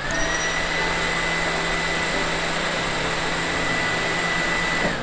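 Opened-up hot air gun running with its heating coil exposed: the small fan motor blows air over the red-hot coil, a steady rush of air with a high whine. The whine dips and climbs back to speed at the very start, and everything stops abruptly near the end.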